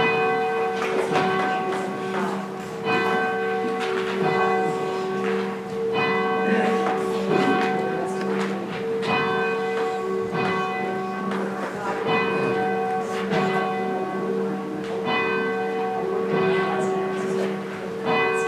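A single church bell ringing, struck about every one and a half seconds, each stroke ringing on into the next.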